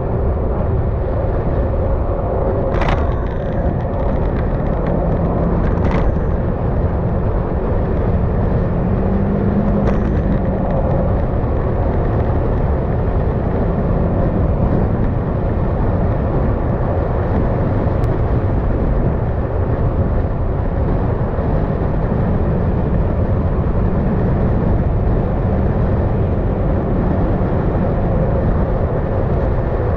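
Yamaha XMAX scooter under way on the road: its engine runs steadily beneath a constant rush of wind and road noise, with a few brief ticks in the first seconds.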